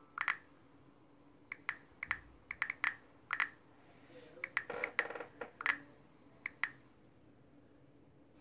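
Phone on-screen keyboard key-press clicks while a text message is typed: an uneven string of short, alike clicks that stops about seven seconds in.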